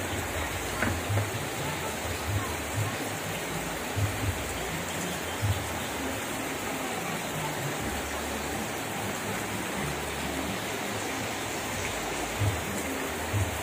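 Steady rain falling, with a few soft low thumps now and then.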